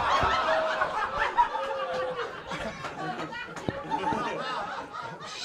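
Audience laughing, with many overlapping voices, dying down gradually toward the end.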